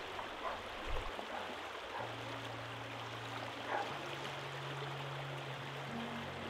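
River water running steadily over rocks. About two seconds in, soft background music comes in with long low notes that step up in pitch twice.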